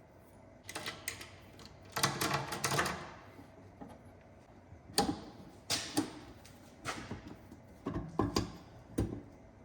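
Metal tools clicking and clattering while a flare kit is set up on the new fuel line: a run of rattling clicks about two seconds in, then single sharp knocks about once a second.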